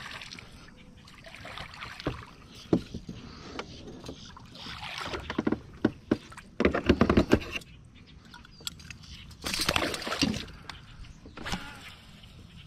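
A hooked bass splashing and thrashing at the surface as it is played to the side of a kayak, with scattered knocks and clicks on the kayak. Two louder bursts of splashing come a little past halfway and again a few seconds later.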